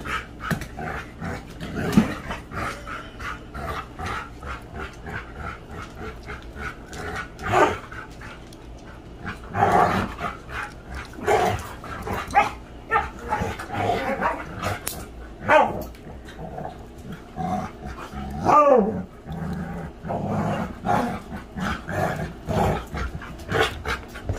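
Dogs, among them a husky-type dog, growling and barking in rough play, with short yips in between. About three quarters of the way through, one longer cry slides down in pitch.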